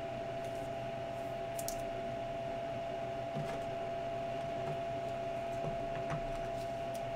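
Steady electrical hum with one constant tone, with a few faint clicks from a trading card being handled in a plastic holder.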